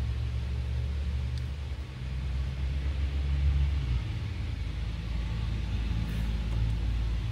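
A steady low mechanical rumble with a faint hum in it, running without a break.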